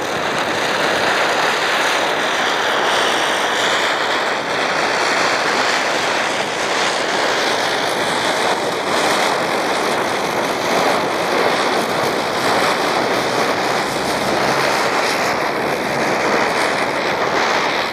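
Diwali ground spinners (chakkar) whirling on the ground, a steady loud hiss and rush of burning sparks, with a thin high whistle running through it.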